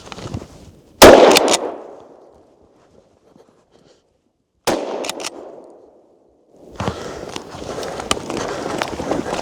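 Two gunshots from a deer-hunting gun about three and a half seconds apart, each trailing off over about a second; the first is much louder. Then a steady rustle and crunch of movement.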